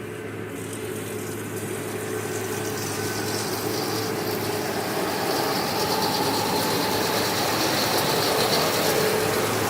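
Diesel farm tractor engine running steadily as the tractor and round baler draw closer, growing steadily louder.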